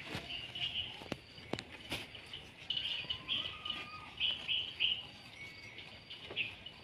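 Small birds chirping in quick short notes, with a few sharp knocks and rustles in the first two seconds from goat kids feeding at a cardboard box of greens.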